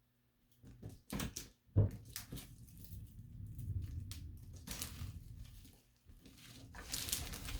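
ASMR handling sounds: irregular crunching and scratching bursts from objects being rubbed and crushed, with one sharp knock about two seconds in.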